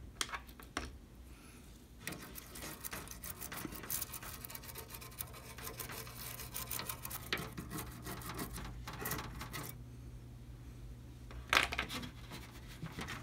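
A brush scrubbing an alcohol-wet circuit board to clear white flux residue left by Kester 951 flux: a fast run of fine, scratchy strokes for several seconds. A brief louder knock near the end as the board is moved in its plastic tub.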